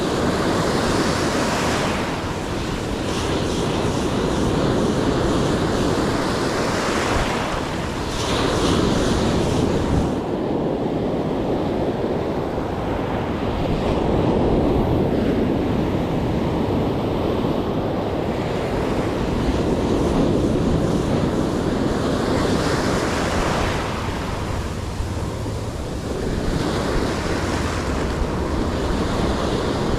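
Ocean surf breaking and washing up the beach, with wind buffeting the microphone; the hiss of the wash swells up and fades several times.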